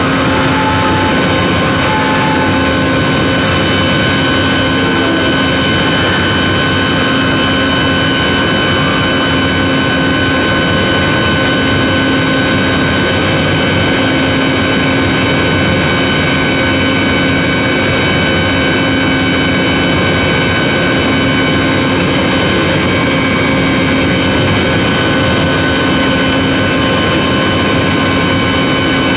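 Electric motor and centrifugal pump running steadily, a loud unbroken hum and whine with several steady tones standing out above the machine noise.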